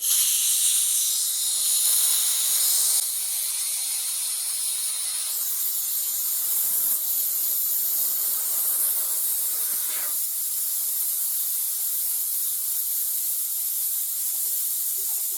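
Compressed air hissing steadily out of a resin-casting pressure pot being vented to release the cured blank. The hiss eases a little about three seconds in.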